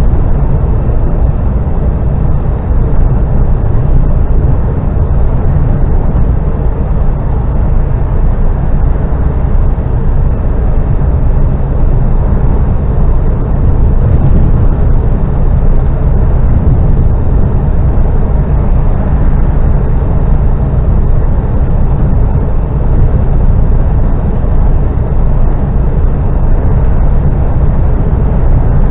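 Steady, loud drone inside a lorry's cab at motorway cruising speed: engine and road noise, deepest in the low end, with no change in pitch.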